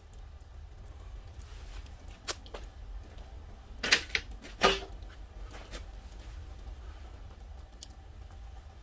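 Wood fire crackling: a few sharp pops spread through, the loudest two about half a second apart near the middle.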